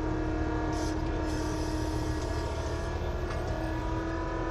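A bulldozer's engine running steadily under load, a constant drone with a low rumble. About a second in, a hiss joins for a couple of seconds.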